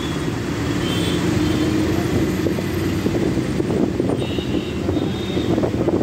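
Steady running noise inside a moving city bus: engine hum and road noise, with short knocks and rattles in the second half.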